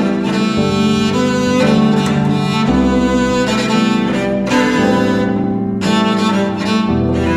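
Carbon-fibre cello bowed in long, sustained notes, a slow freestyle melody, with deeper bass notes sounding underneath at times.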